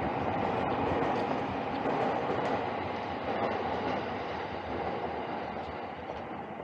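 Electric commuter train running past on the tracks, a steady rumbling rush that fades gradually over the last few seconds as it moves away.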